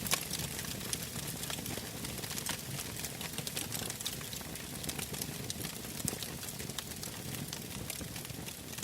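Campfire crackling: irregular sharp snaps and pops, several a second, over a steady background rush.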